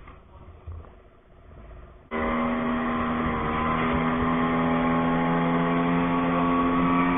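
Small speedboat's outboard motor running steadily under way, a constant engine drone that comes in abruptly about two seconds in after a near-quiet start.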